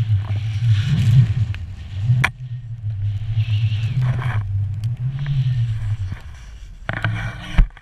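Snowboard sliding and carving through deep powder snow, a rush of snow spray swelling with each turn, over a low rumble of wind on the camera's microphone.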